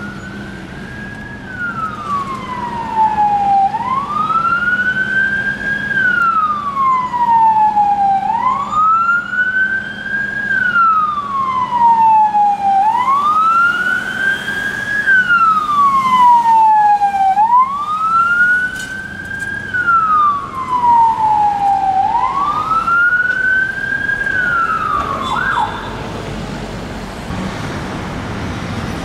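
Mercedes Sprinter police van's siren on a slow wail, rising and falling in pitch about every four and a half seconds and growing louder as it approaches. It cuts off with a brief chirp about 25 seconds in, leaving road traffic noise.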